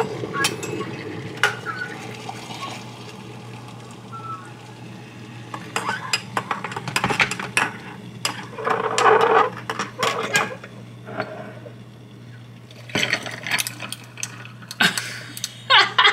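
Hot water poured from a kettle into a ceramic mug, then a metal spoon stirring and clinking against the mug in quick bursts. More clinks of glass and ice follow near the end as the coffee is poured over ice.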